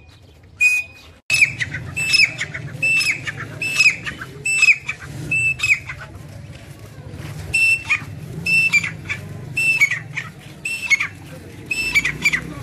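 Grey francolin calling: a loud, high, ringing note repeated over and over, more than once a second, each note ending in a short downward hook.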